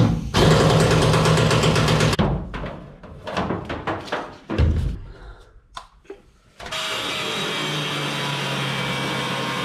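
Power tools on the steel roll cage of a pickup. An air tool runs for about two seconds, then come broken, intermittent bursts, and from about seven seconds a cut-off wheel grinds steadily through the steel.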